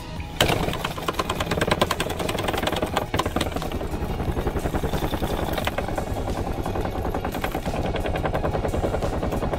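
A tuna's tail beating very fast against the boat's deck in a rapid, even drumming of many strokes a second, starting suddenly about half a second in. It sounds like an out-of-balance washing machine on the spin cycle, the shudder of a dying tuna.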